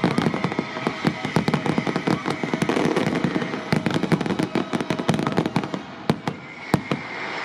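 Fireworks display: a rapid barrage of aerial shells bursting in a dense run of bangs and crackles, thinning to a few single bangs near the end.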